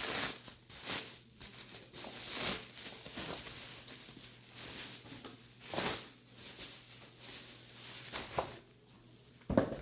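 Paper and packaging rustling and crinkling as a boxed book and its wrapping are handled, in irregular short swells every second or two.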